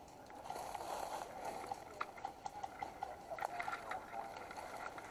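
Dry fallen leaves crunching and rustling as someone shifts and crawls on a leaf-covered slope, with scattered small crackles that grow denser in the second half.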